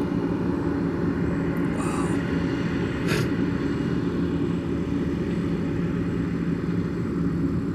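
Engine running steadily with a low, even drone, and two faint short clicks about two and three seconds in.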